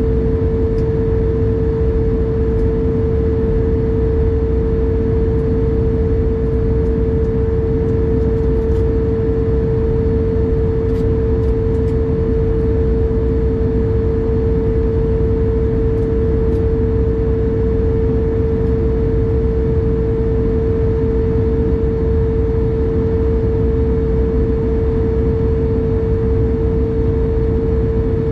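Airliner's underwing turbofan engine and the rush of air, heard from inside the passenger cabin: a steady, loud noise with one strong, unwavering hum running through it.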